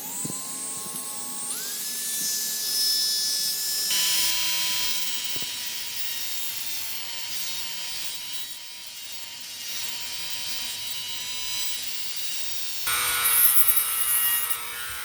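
Dremel rotary tool with a cutting wheel whining at high speed and grinding off the protruding end of a metal staple. It spins up at the start, runs at a steady pitch with a couple of sudden shifts, and winds down with a falling whine at the end.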